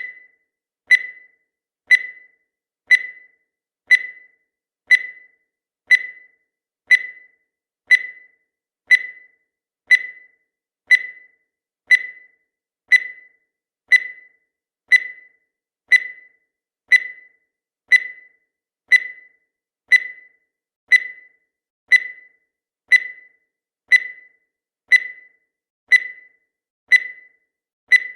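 Countdown timer sound effect: a short high beep once every second, each dying away quickly, at a steady pace.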